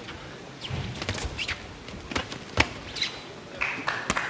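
Boxing ring action during a bout: sharp thuds of punches landing and short squeaks of boots on the canvas over a murmur of arena crowd noise. Near the end there is a brief steady tone that drops to a lower pitch.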